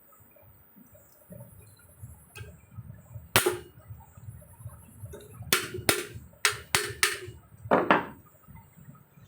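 Hammer knocks on the metal parts of a high-speed fan motor being put back together, tapped to seat them. One sharp knock, then a quick run of about six more a couple of seconds later, each with a short metallic ring.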